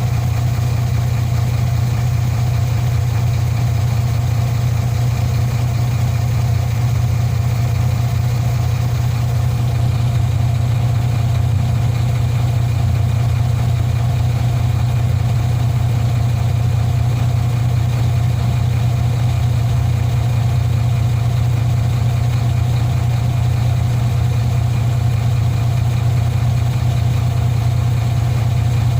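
Heavy diesel engine idling steadily and evenly, with a deep, constant hum.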